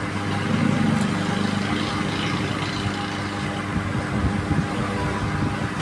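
Handheld hot air gun running steadily, its blower giving an even rushing noise with a low hum, as it heats heat-shrink tubing over soldered wire joints.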